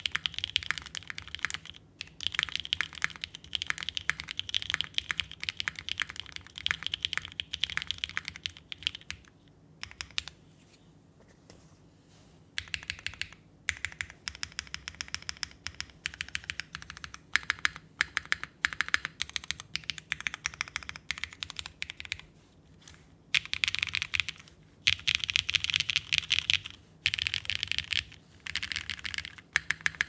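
Typing on a mechanical keyboard with vintage Cherry MX Black linear switches lubed with Stem Cream, in an aluminium plate with GMK keycaps. It is a fast patter of keystrokes in bursts, broken by a pause of a few seconds about ten seconds in and a shorter one a little past twenty seconds.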